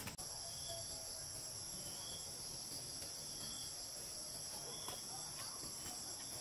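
Chorus of forest insects: a steady, high-pitched drone in two pitches.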